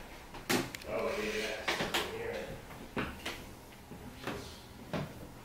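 Footsteps and scattered knocks and creaks on an old hardwood plank floor, about seven irregular knocks.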